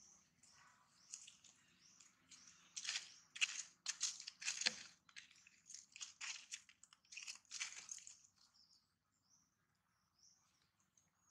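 A macaque making dry crunching and crackling sounds, a run of sharp crunches about two a second that grows dense through the middle and dies away near the end.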